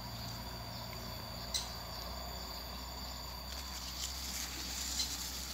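Steady high-pitched insect chorus, a continuous shrill drone, with a couple of short clicks about a second and a half in and near the end.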